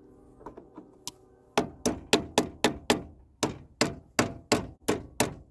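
Rapid hammer blows, about four a second, a few light taps then a steady run with a brief pause midway.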